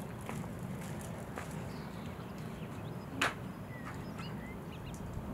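Evening outdoor ambience at a horse yard: a steady low rumble with small birds chirping now and then, a few faint knocks and one sharp knock about three seconds in.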